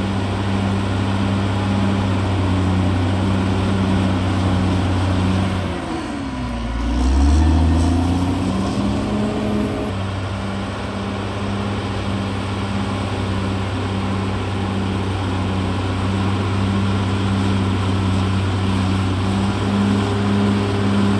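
Caterpillar D6R XL bulldozer's diesel engine running steadily. About six seconds in its pitch dips briefly with a louder low rumble, then recovers and holds steady.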